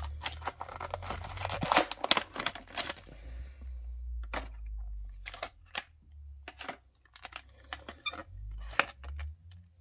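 Clear plastic blister packaging crackling and crinkling as it is worked open by hand to free a small diecast model. Dense crackling for about three seconds, then scattered separate clicks and snaps.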